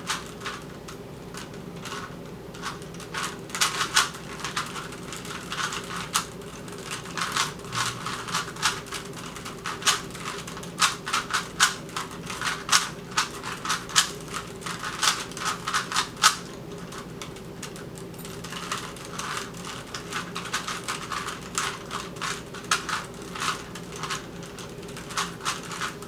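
Rubik's cubes being turned fast during a timed solve: a dense, irregular run of small plastic clicks and clacks as the layers snap round. A steady low hum sits underneath.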